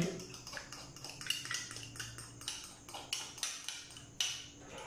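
Metal fork clinking and scraping against a small bowl as mustard paste is scraped out into a glass bowl of marinade: a run of light, irregular clicks and scrapes.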